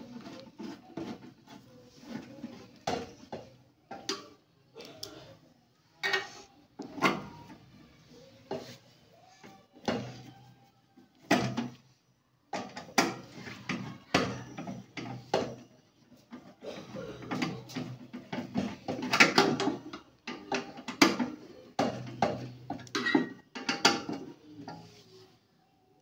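Screwdriver and metal parts clicking and clattering as a microwave oven's magnetron is screwed onto its sheet-metal mounting bracket. The knocks come irregularly, with a short gap about twelve seconds in.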